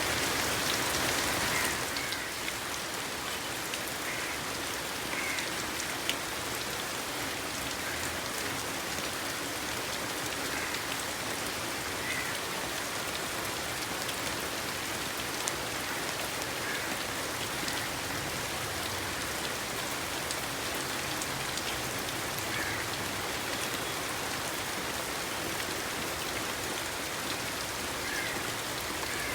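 Steady rain falling, an even hiss of drops on surfaces, a little heavier for the first two seconds and then easing to a constant level.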